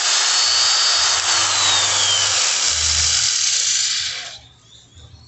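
DeWalt electric angle grinder switched on and running with a loud high whine, then winding down and stopping about four seconds in. It makes the odd noise the owner reported, a suspected internal rub.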